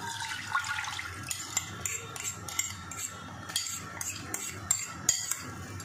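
Thin chili sauce poured from a bowl into a frying pan, then a metal spoon scraping the bowl out over the pan in a run of quick clicks and scrapes against the bowl.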